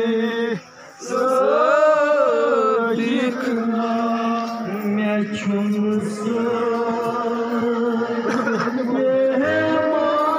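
Slow, drawn-out male chanting held on long notes, with a brief break about half a second in.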